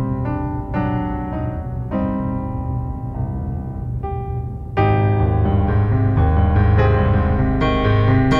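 Film score: piano music playing separate notes, swelling about five seconds in into a louder, fuller passage with deep bass underneath.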